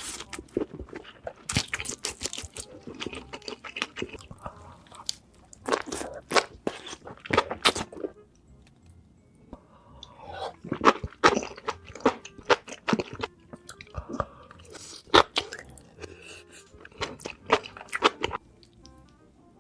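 Close-miked eating of crunchy food: repeated crisp bites and crunching chews in irregular clusters, with a short pause in the middle. Background music plays underneath.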